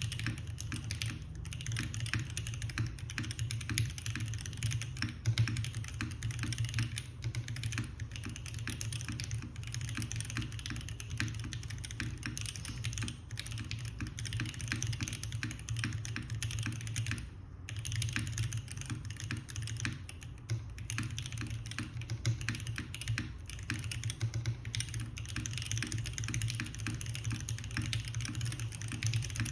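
Continuous fast typing on a Keycult No. 1 Rev. 2 custom mechanical keyboard: lubed JWK Popus linear switches on a brass plate in a gasket mount, with cherry-profile keycaps, giving a dense stream of keystroke clacks. The typing stops briefly about 17 seconds in.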